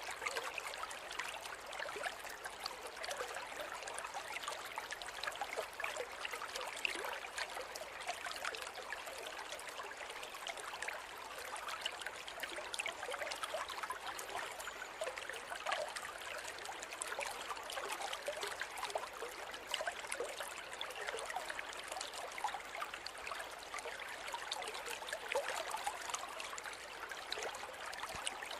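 A shallow river running steadily, with many small splashes and trickles over rocks.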